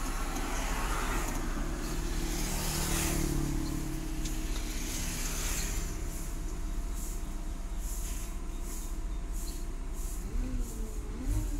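Compressed air hissing from a Scania K410's air brake system, in a long rush lasting about three seconds and a shorter one a couple of seconds later, over a steady low engine hum. This is the sound the system makes as its air pressure runs out.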